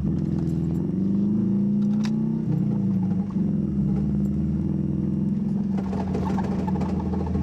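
Subaru flat-four engine heard from inside the car's cabin, driving slowly off-road: the engine note climbs for about two seconds, then drops as the revs fall and runs steady after that. There is a short sharp knock about two seconds in.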